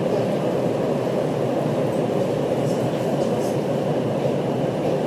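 Steady rumbling noise of a train, heard from on board.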